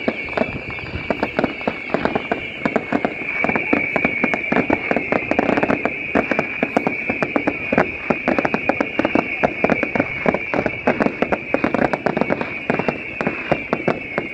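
Fireworks going off: a dense, rapid run of sharp crackling pops from small shells and crackle effects bursting, over a steady high whistle.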